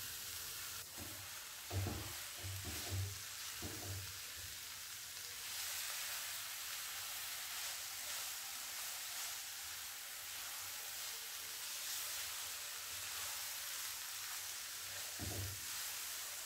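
Grated carrot and sugar frying with a steady, quiet sizzle in a nonstick pan while a wooden spatula stirs it, with a few soft thumps from the stirring about two to four seconds in and once near the end.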